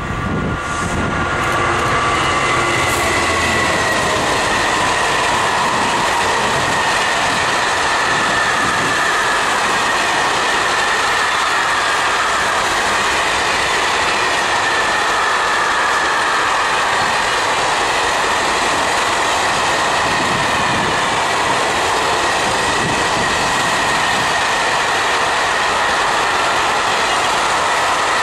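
Long freight train of hopper wagons rolling past at speed: a steady loud rolling rush with a high whine from the wheels. The Class 66 diesel locomotive hauling it is heard going by in the first few seconds.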